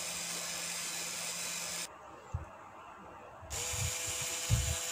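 Electric hand mixer running at medium speed, its beaters whipping chilled cream in a glass bowl: a steady motor whir. It drops away about two seconds in, then starts again with a higher hum, with a few low knocks near the end.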